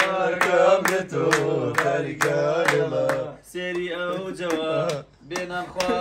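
A man singing in a drawn-out, chant-like melody in several phrases, with hand claps roughly twice a second.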